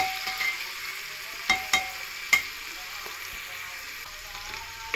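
Sliced onions frying in oil and butter in a pan, a steady sizzle, with a spatula knocking against the pan about four times in the first two and a half seconds as they are stirred toward browning.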